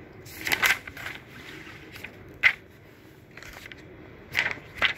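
Pages of a paper textbook being turned and handled: a run of short paper rustles and flaps, the sharpest about two and a half seconds in.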